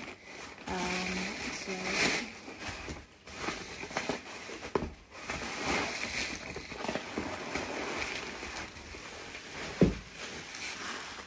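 Bubble wrap and plastic packaging crinkling and rustling while wrapped crockery is handled and pulled out of a cardboard box, with scattered small clicks and one sharp knock near the end.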